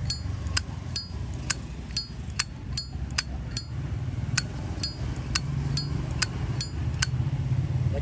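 Zippo 204 lighter's lid flicked open and snapped shut over and over, about two metallic clicks a second, many with a bright ringing ping. The crisp action comes from its original, realigned hinge and a strong cam spring.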